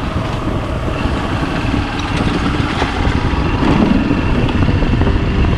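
Hero Xpulse 200 single-cylinder motorcycle engine running steadily while being ridden, a little louder about four seconds in. The rider suspects a badly set timing chain behind an odd noise from this freshly rebuilt engine.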